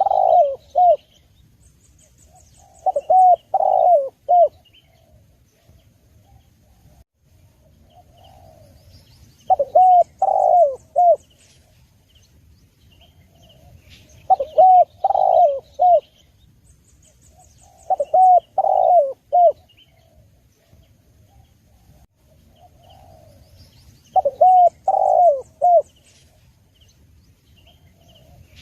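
Spotted dove (tekukur) cooing: phrases of three or four rounded coos, each phrase about a second and a half long, repeated about every four to five seconds. Faint high chirps of small birds come in between the phrases.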